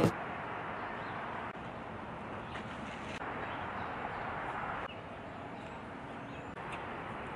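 Steady outdoor background noise: an even hiss with no clear single source, stepping slightly up or down in level a few times where the footage is cut.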